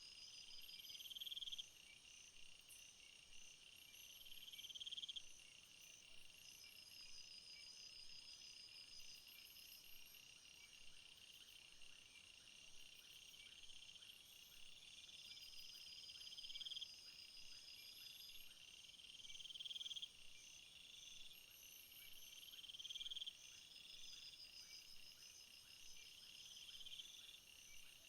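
Faint chorus of crickets and other field insects chirring steadily at a high pitch. Over it, one insect's buzzing trills swell for a second or two and stop abruptly, again every few seconds.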